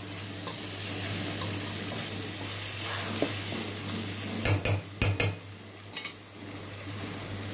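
Spice masala with raw mango sizzling as it fries in a stainless steel kadai while a steel spoon stirs and scrapes it. A few sharp clinks of the spoon against the pan come a little past the middle.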